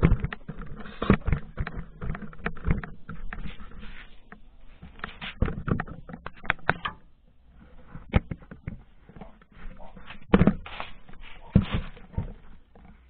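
Irregular clicks, knocks and rustling, quieter for a moment about halfway through, with two louder knocks near the end.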